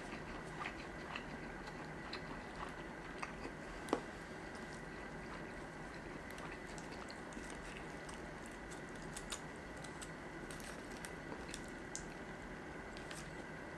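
Quiet chewing of sushi: soft wet mouth sounds and small scattered clicks, with one sharper click about four seconds in, over a steady background hum.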